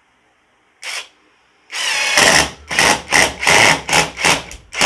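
Mensela ID-L2 brushless cordless impact driver driving a 2-inch screw into wood on its medium speed. A short blip comes just under a second in; then from about halfway the motor spins up and the impact mechanism hammers in a string of short bursts, about three a second, as the screw meets resistance and the impacts engage.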